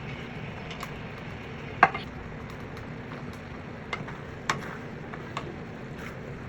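A kitchen utensil knocking against cookware: a few sharp clinks, the loudest about two seconds in and a few lighter ones later, over a steady low background noise.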